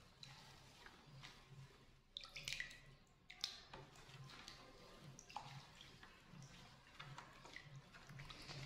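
Hand swirling water in a plastic bowl to dissolve sea salt, with faint, scattered small splashes and drips.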